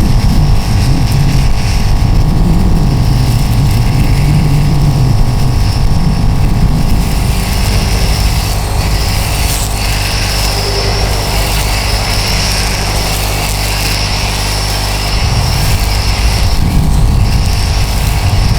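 DeWalt DCST922B 20V brushless string trimmer running steadily for a long stretch. The low part of the sound changes about fifteen seconds in.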